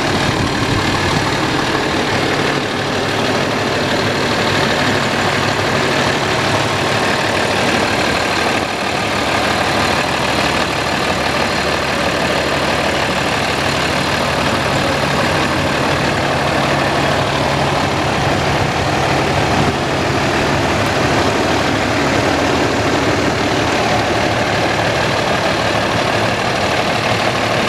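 Diesel engine of a 2009 Sterling Acterra medium-duty truck idling steadily.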